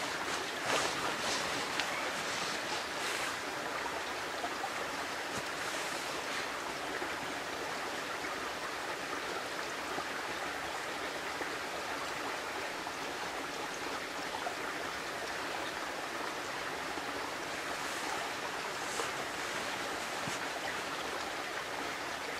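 Steady rushing background noise of the snowy forest, with a few faint rustles in the first seconds and again near the end.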